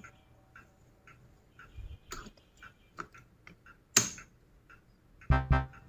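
Plastic magnetic toy sticks and balls clicking together as a stick is snapped onto a ball, the sharpest click about four seconds in, over a faint steady ticking of about two ticks a second. Music with a heavy beat starts near the end.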